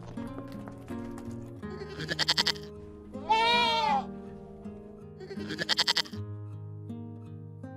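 Goat bleating three times: two fast, quavering bleats with a longer bleat between them whose pitch rises and then falls, over steady background music.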